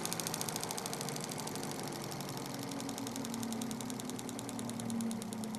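CR-Kromrey converter's counter-rotating rotors spinning on their drive motor: a steady mechanical hum with a rapid, even pulsing, its pitch sinking slightly as the RPM is turned down.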